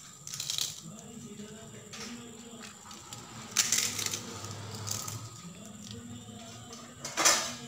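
Small crisp fried puris being crushed by hand: light crackling with sharper crunches about half a second in, around three and a half seconds, and loudest near the end.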